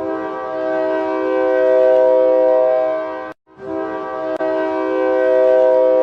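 Ice hockey goal horn: an air horn sounding a chord of several notes at once in long held blasts. It cuts off briefly a little over three seconds in, then sounds again.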